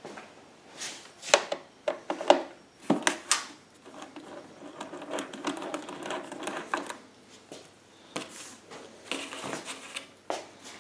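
Phillips screwdriver working the side screws out of a Honda EU1000i generator's plastic front panel: a run of sharp clicks and knocks in the first few seconds, irregular scraping and clattering in the middle, and more clicks near the end.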